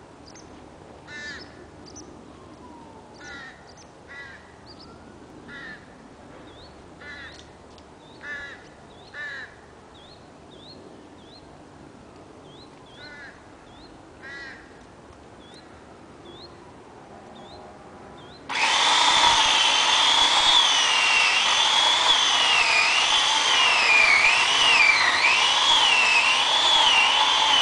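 Birds calling repeatedly over a quiet background, then, about two-thirds of the way in, a chainsaw starts abruptly and runs loud, its engine pitch wavering up and down.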